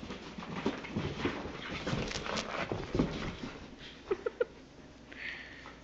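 A basenji puppy and a Shih Tzu–Yorkie mix play-fighting on carpet: scuffling paws and bodies with soft knocks, then three short high yelps from one of the dogs about four seconds in.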